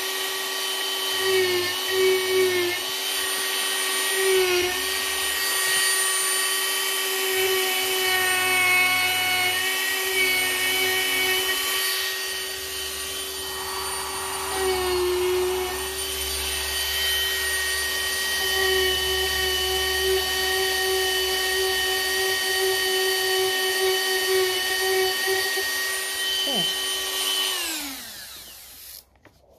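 Dremel rotary tool running at high speed as it carves wood, a steady high whine whose pitch dips briefly a few times as the bit takes load. Near the end it is switched off and winds down to a stop.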